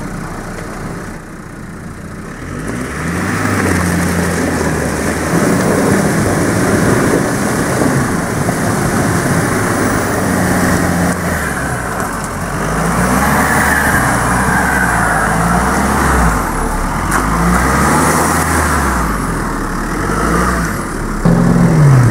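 Jeep Wrangler JK's engine revving hard in repeated rises and falls as it drives through deep mud, with the tyres churning and spraying mud.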